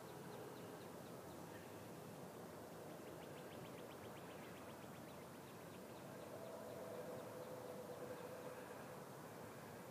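Faint evening garden ambience: a high, rapid trill of quick ticks comes and goes, strongest a few seconds in, and a faint low steady drone swells briefly later.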